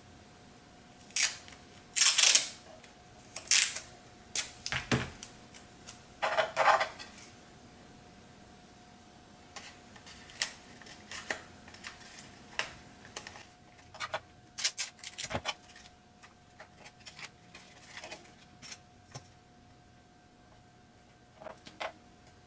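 Hands handling a hard plastic drone canopy and masking tape on a cutting mat: scattered clicks, taps and short rustles, busiest in the first few seconds and sparser later, over a faint steady hum.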